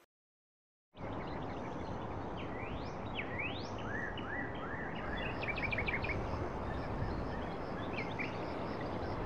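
Birds calling over a steady outdoor noise that starts about a second in: several rising whistled calls and a quick run of chirps about five seconds in.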